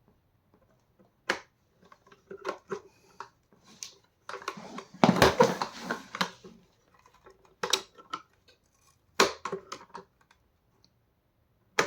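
Plastic parts of a Vax Mach Air upright vacuum's brush bar assembly clicking, knocking and scraping as they are worked apart by hand. There is a louder stretch of scraping and rattling about four to six seconds in.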